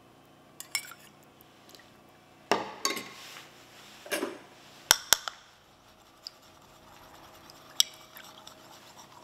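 Spoon clinking and scraping against a small porcelain cup while egg yolk and dashi are stirred together, with the cup handled on the table; scattered clinks, the sharpest a quick pair about five seconds in and another near the end.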